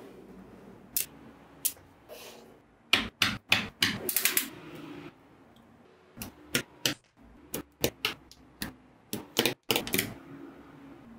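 Small neodymium magnetic balls clicking together as they snap into place: irregular sharp clicks, some in quick runs of several.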